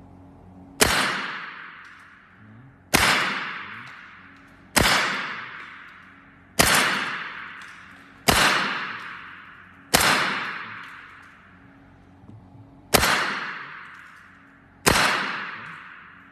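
Evanix semi-automatic PCP air rifle in .25 calibre firing a string of eight shots about two seconds apart, with one longer pause before the seventh. Each shot is a sharp crack followed by a long echoing decay. This is a chronograph velocity string with about 150 bar left in the air reservoir.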